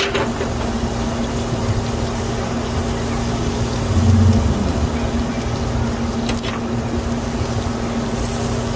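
A steady mechanical hum over a constant rushing noise, with a couple of faint clicks.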